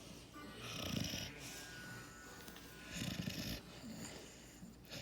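Sleeping puppy snoring: rasping snores about every two seconds, two full ones and a third starting at the very end.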